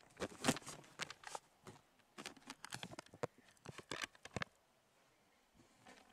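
Irregular clicks and rustles of handling and movement, stopping about four and a half seconds in.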